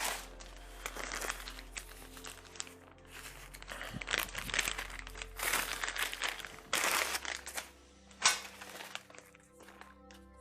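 Soft background music with held tones, under irregular scraping and rustling handling noises as parts are worked on.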